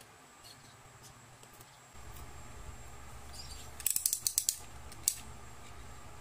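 Blade of a plastic snap-off utility knife being slid out, a quick run of ratcheting clicks from the slider, then one more click about a second later.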